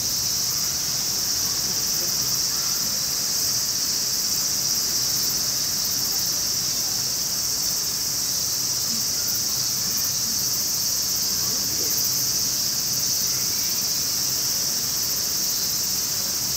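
A steady, unbroken high-pitched drone from a chorus of insects, with a faint low hum underneath.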